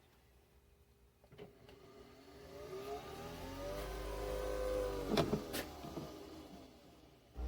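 Nespresso Vertuo Next's capsule-spinning motor whirring up and back down: a rising then falling whine lasting about four seconds, with a few clicks. This is the machine spinning the capsule to read its barcode or brew.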